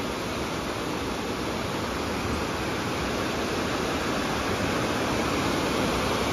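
Steady rush of a wide waterfall cascading over rock ledges.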